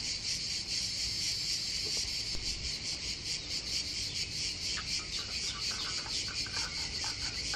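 A steady chorus of crickets, a dense, rapid, high-pitched chirring. Faint short ticks join about five seconds in.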